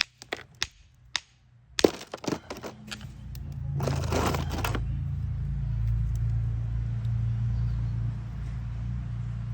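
Sharp clicks and knocks of hard stone pieces being handled, a cluster of them about two seconds in, then a brief scrape about four seconds in. A steady low hum runs underneath from about three seconds on.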